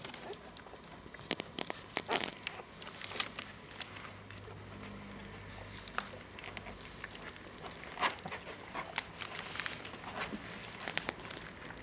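Bull terrier puppies nursing from their mother: irregular wet suckling clicks and smacks, with small puppy squeaks and whimpers among them.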